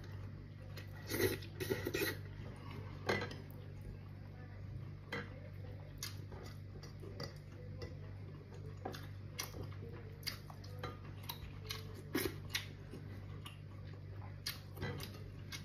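Eating by hand from a ceramic plate: scattered light clicks and taps of fingers and food against the plate, with chewing, over a steady low hum.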